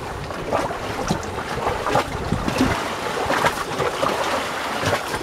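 Small waves slapping and sloshing against the hull of a moored motor boat lying alongside a harbour wall, with wind buffeting the microphone.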